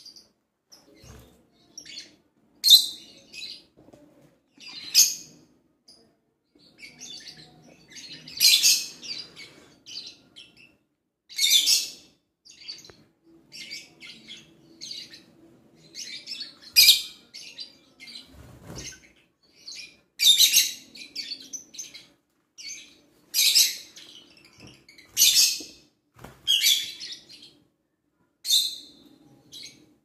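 Pet birds calling: loud high-pitched chirps every two to three seconds, with softer chirping in between.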